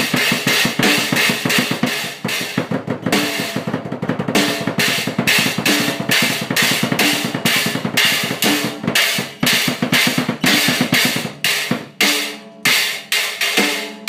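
Drum kit played fast and hard: rapid snare and bass drum strokes under cymbals and hi-hat, thinning to a few spaced single hits near the end.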